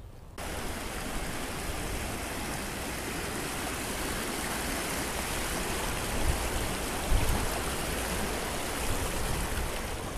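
Shallow river water rushing through the gaps between concrete stepping stones: a steady, full hiss of flowing water that starts abruptly, with a couple of low thumps about six and seven seconds in.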